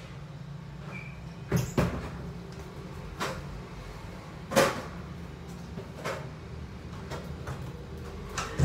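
Scattered knocks and bumps, about six in all, the loudest a little before the middle, like a cupboard or door being handled, over a steady low hum.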